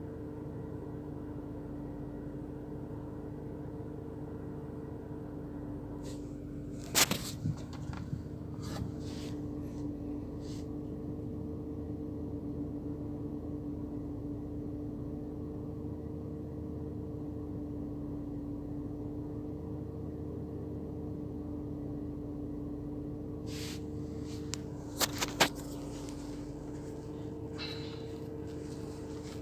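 A steady mechanical hum holding two constant tones. Short clusters of sharp clicks and knocks come about seven seconds in and again near twenty-five seconds.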